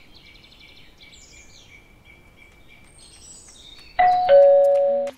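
Birds chirping softly, then about four seconds in a two-tone ding-dong doorbell rings loudly, the second note lower than the first.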